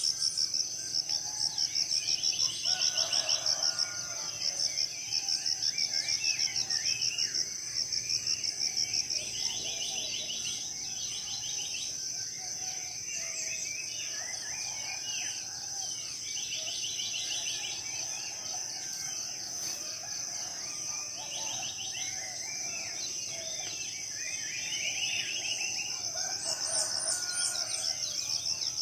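Tropical forest morning chorus: many birds chirping and calling over a steady high-pitched insect drone. The drone pulses rapidly for the first several seconds, then evens out.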